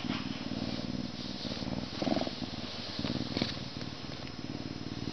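A lynx purring steadily while being stroked and scratched, with a fast rumbling pulse that swells and eases in waves and is briefly louder about two seconds in.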